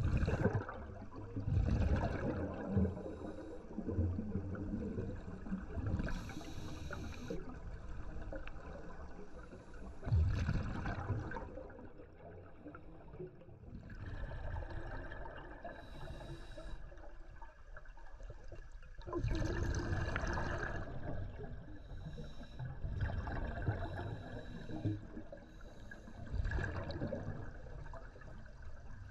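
Scuba regulator breathing heard underwater: every few seconds a hiss of inhaled air and a rumbling, gurgling rush of exhaled bubbles.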